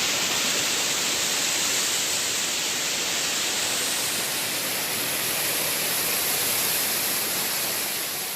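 Waterfall: a steady, even rush of falling water, easing slightly near the end.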